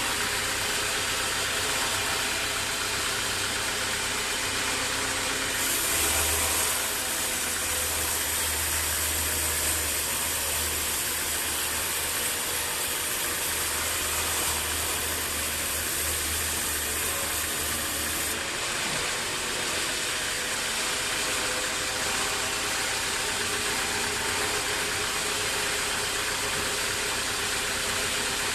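Band sawmill machinery running steadily. From about six to eighteen seconds in, a louder hiss and a low hum join the sound, then stop suddenly.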